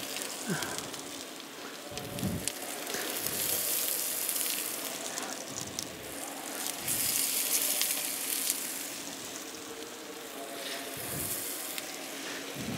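Rendered beef fat sizzling in a frying pan, with a steady hiss and many small pops.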